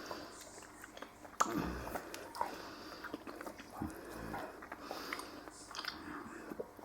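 Black cocker spaniel making small, quiet mouth and nose sounds close to the microphone, with a sharp click about a second and a half in and soft low thumps near two and four seconds.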